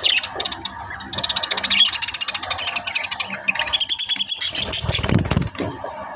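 Budgerigars chattering and warbling in fast, scratchy runs, with a clear whistled note about four seconds in.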